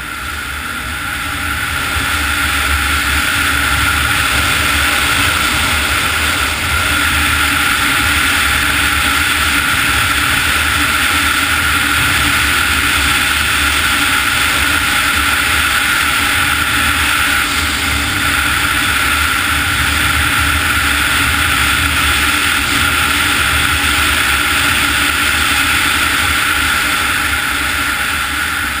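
Snowmobile engine and track running at steady cruising speed, a constant whine over a hiss of air and snow. It builds over the first few seconds, then holds steady.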